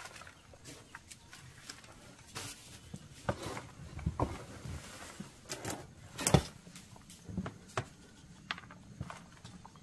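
Irregular knocks, scrapes and rustles as a metal pot and bananas are handled inside a plastic tub, with the loudest knock a little past the middle.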